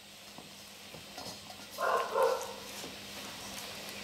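A hand mixing flour and water in a stainless steel bowl: soft rubbing with faint light clicks. About two seconds in comes one brief, louder sound.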